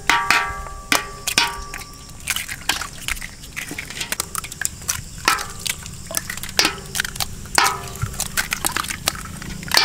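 Many hens' eggs being cracked open by several hands over a large stainless steel pot: a fast, irregular patter of shell cracks and knocks against the metal, some ringing briefly, with the egg contents splashing into the pot.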